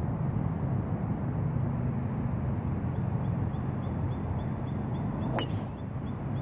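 An iron striking a golf ball once: a single sharp click about five seconds in, over a steady low rumble.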